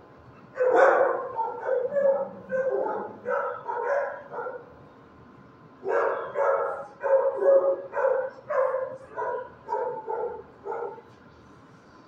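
Dog barking in rapid runs of short barks, about two a second, in two bouts with a pause of about a second and a half between them.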